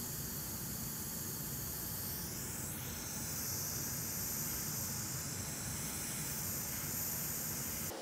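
Hot air rework station blowing a steady hiss over the board. It is melting the pre-applied solder to reflow the HDMI connector pins onto their pads. The hiss grows louder and brighter about three seconds in, as the nozzle comes in close.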